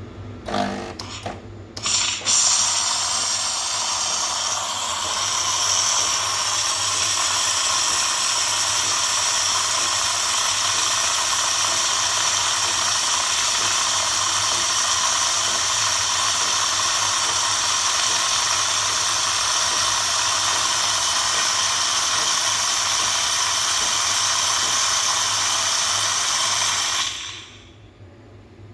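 Espresso machine's steam wand hissing steadily for about 25 seconds, frothing milk for a cappuccino, after a few short knocks; the hiss cuts off suddenly near the end.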